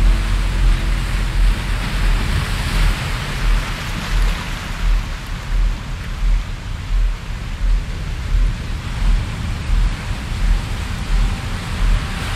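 Ambient relaxation soundtrack: a steady hissing noise wash that swells a couple of seconds in, over a low bass pulse about once a second.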